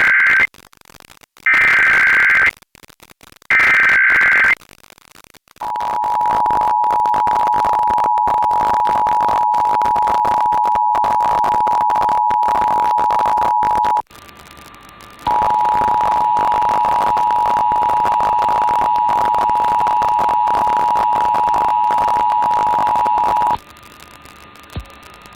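Emergency Alert System (EAS) test signals: the end of one SAME header data burst and two more, short screechy digital chirps about a second apart. These are followed by the two-tone EAS attention signal held steadily for about eight seconds. After a brief break, a second two-tone attention signal, aired by another station, runs for about eight seconds and cuts off.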